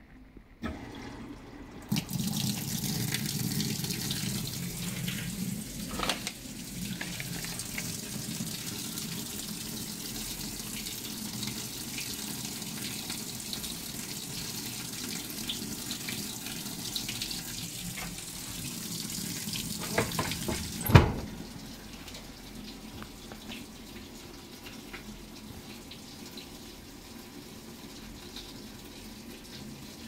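LG top-loading washing machine filling its tub with water for a tub-cleaning cycle, water pouring steadily from the inlet and splashing into the drum. About two-thirds of the way through the lid is shut with a loud knock, and the filling carries on muffled.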